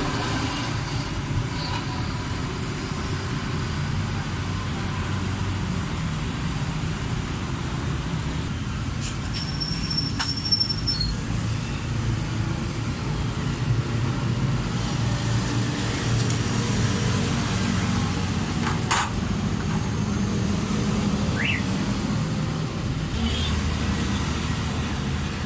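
Steady low rumble of road traffic, with a few brief clicks and taps.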